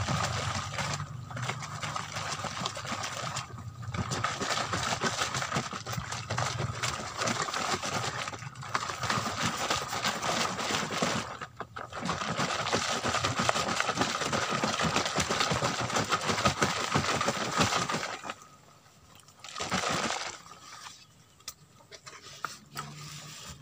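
Gas hissing out from under the loosened cap of a plastic jerrycan of fermenting liquid goat-manure fertilizer, with a thin whistling edge and a few short breaks. It dies away near the end, showing the brew has built up pressure within minutes.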